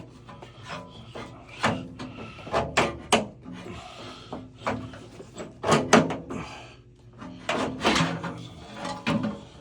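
Irregular knocks, clicks and scraping of metal parts being worked by hand as the gas water heater's burner assembly is fitted back into the combustion chamber.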